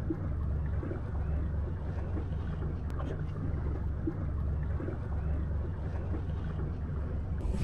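Boat's outboard motor running steadily, a low even drone with some wind noise.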